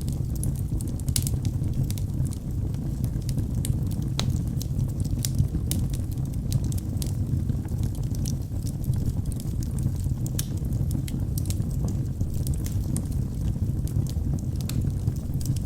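Wood fire burning in a fireplace: the flames give a steady low rumble, with frequent small crackles and pops throughout.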